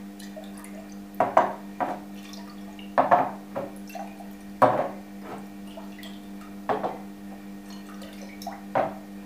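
Small glass jars of seed-soaking solution being picked up, swirled and set back down on the table one after another: a sharp knock of glass on the tabletop every second or two, with liquid sloshing, over a steady low hum.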